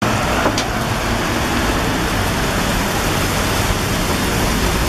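Heavy rain falling in a city street: a steady, dense hiss.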